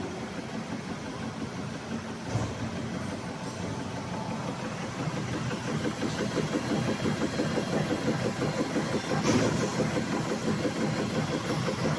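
High-speed two-spindle drilling machine running, with a fast, even run of drilling strokes that grows louder about halfway through, over a thin steady high-pitched tone. Two brief louder noises break in, once early and once near the end.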